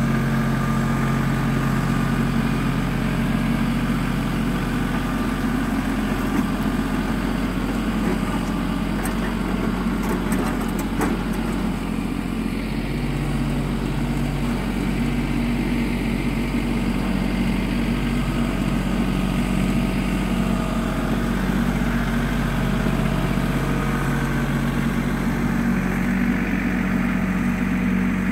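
LS compact tractor's diesel engine running steadily while dragging a box blade through loose dirt, its engine note shifting slightly about halfway through.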